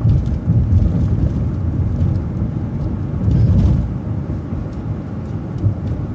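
Vehicle driving along a street: a steady low engine and road rumble that swells briefly about three and a half seconds in.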